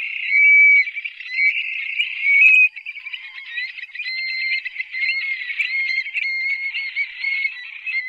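Stone-curlew calling: high whistled notes that jump up and down in pitch, loudest in the first three seconds, then running on as a fast, dense chatter of short notes.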